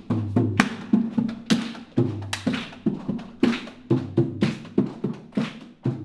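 Body percussion: a quick, steady rhythm of sharp hits, about three a second, over low ringing tones.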